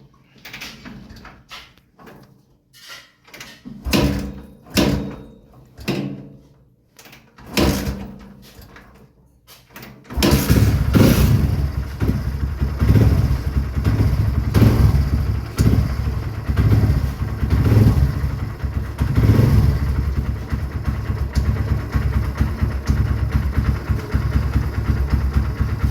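Kawasaki Barako motorcycle's single-cylinder engine being started with difficulty: a string of short bursts and knocks, then it catches about ten seconds in and runs at a low, uneven idle that rises and falls. The engine is hard starting and its idle is set too low, so it keeps threatening to die.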